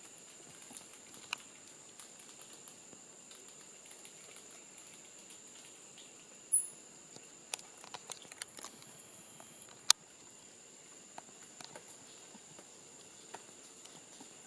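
Quiet forest ambience: a steady high-pitched drone with scattered faint ticks and rustles, like small movements in leaf litter. A brief high chirp comes about six seconds in, and a single sharp click near ten seconds.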